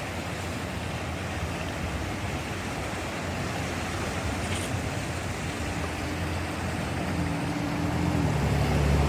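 Steady rush of floodwater from a swollen river, with the hum of a vehicle engine coming in about halfway and growing louder near the end.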